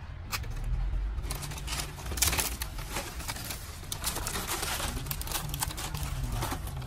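Dry, brittle leaves crackling and rustling as they are handled and pulled about, in irregular bursts of crackles from about a second in.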